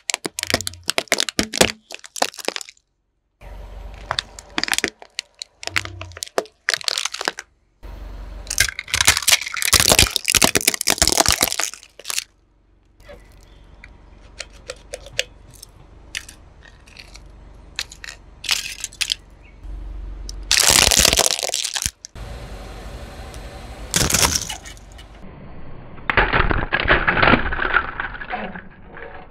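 A car tyre rolling over and crushing objects: clusters of sharp cracks and crunches in several separate takes that start and stop abruptly.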